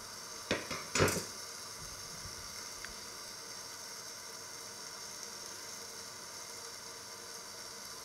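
Food sizzling steadily under the lid of a covered stainless-steel pot on an electric hob. A few sharp knocks come close together about half a second to a second in.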